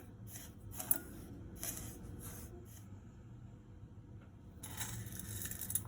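A few short dry scrapes, like a spatula stirring roasted broken wheat in a pan, followed about four and a half seconds in by a steady hiss.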